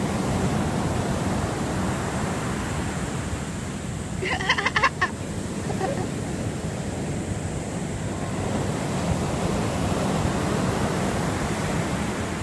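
Surf breaking on the shore, a steady rush of waves. About four seconds in, a brief burst of rapid sharp clicks rises over it.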